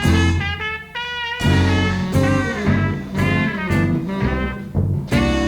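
Jazzy music with brass instruments playing a melody of short, wavering notes over a low bass line.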